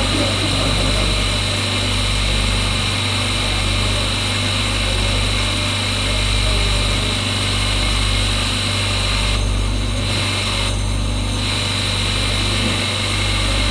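Electric motor-driven grinding wheel of a stone-inlay workshop running steadily, a low hum with a steady high whine and hiss, the wheel spinning without stone pressed to it.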